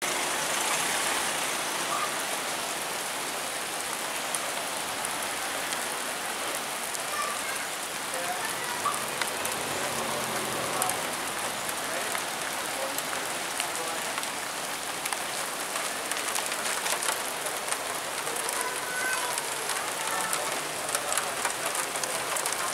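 Steady rain falling, with many individual drops ticking close by.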